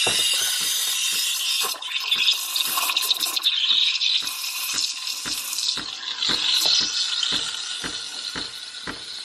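Espresso machine steam wand hissing into milk in a stainless steel pitcher as the milk froths, with frequent small pops and crackles; the hiss grows somewhat quieter toward the end.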